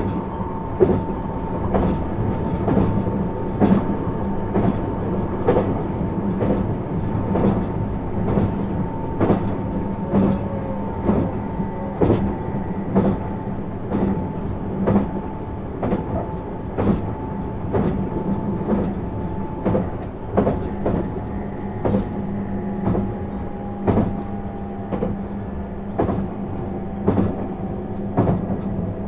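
JR East 651 series electric multiple unit running, heard inside the car: wheels click over rail joints between one and two times a second, over a steady hum and a thin tone that falls slightly in pitch.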